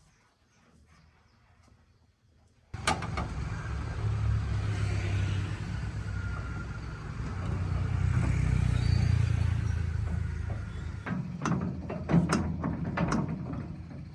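A motor comes in suddenly about three seconds in and runs with a steady low hum for several seconds, then eases off, followed by a quick series of sharp knocks and clacks near the end.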